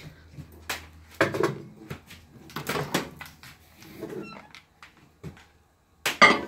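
Phone handling noise: the microphone rubbing and bumping against hair, skin and clothing as the phone is moved about, heard as a series of irregular short scrapes and knocks. The loudest comes a little before the end.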